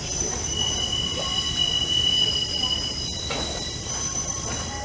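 Train wheels squealing on the rails as a train rolls slowly past, with several high squeal tones that start, stop and change pitch over a low rolling rumble and a few knocks of the wheels over rail joints.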